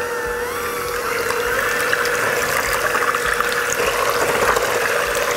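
KitchenAid electric hand mixer running at a steady hum, its wire beaters whisking a thin, runny batter of eggs, oil, buttermilk and maple syrup in a glass bowl with a wet sloshing noise. The motor's pitch wavers for the first second or so as the beaters bite into the liquid, then holds steady.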